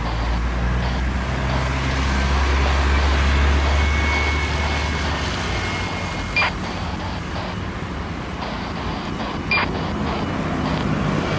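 Boeing 737 jet airliner on its landing rollout: a deep jet rumble, loudest in the first few seconds after touchdown, that stops about five seconds in, leaving a lighter steady engine and wind noise. Two short sharp clicks come later, about three seconds apart.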